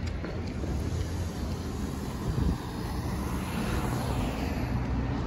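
A car passing close by on a city street, its tyre and engine noise swelling about three seconds in and then easing, over a steady low traffic rumble.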